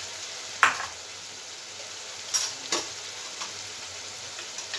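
Onion, tomato, capsicum and chillies sizzling steadily in hot oil as ginger-garlic paste is stirred in, with a stirring utensil knocking against the pan a few times.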